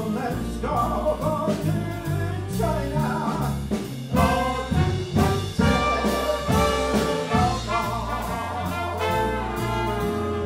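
A live jazz band's brass section, trumpets and trombone, plays an instrumental passage over the rhythm section, with no vocals.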